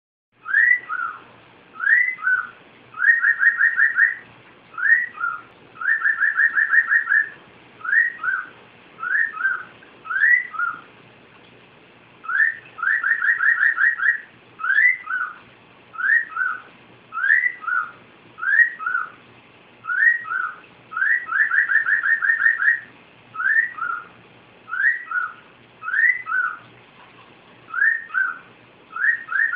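Cockatiel whistling a repeated tune: short two-note phrases, a rising note then a lower one, alternating with fast runs of quick repeated notes. There is a brief pause about eleven seconds in.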